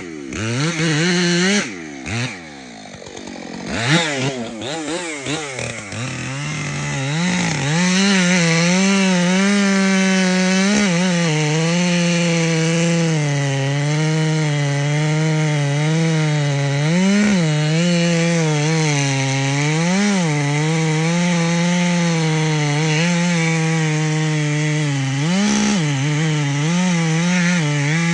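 Two-stroke chainsaw running unevenly for the first few seconds, with a sharp click partway through. It then runs at high revs through the rest, its pitch dipping again and again as the chain bogs under load cutting through white oak.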